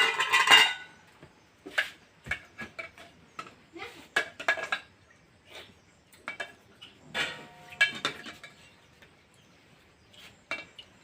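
Metal kitchen utensils and pots clinking and clattering as they are handled, in short irregular knocks, with a louder burst of clatter at the start and some ringing about seven seconds in.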